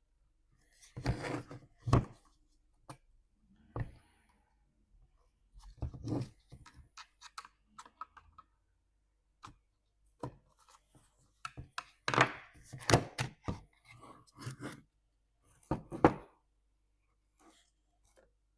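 Irregular knocks, clicks and clatter of hands working on a dishwasher, with parts and tools being handled. The loudest clusters come about a second in, around six seconds, and from about twelve to sixteen seconds.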